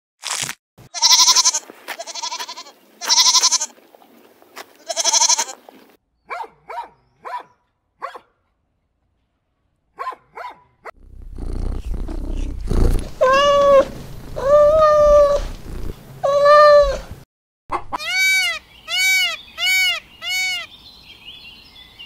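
A string of animal sounds: a few crunching bites of rabbits eating greens, then four loud pitched calls and a few faint short cries. Later a domestic cat purrs with a low rumble and meows three long times while being stroked, followed by a quick run of about six shorter calls.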